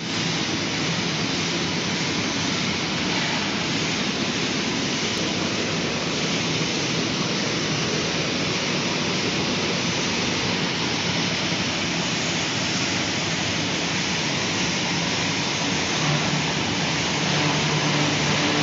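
Automatic napkin-and-cutlery packing machine running, giving a steady, even mechanical noise with no clear beat, a little louder near the end.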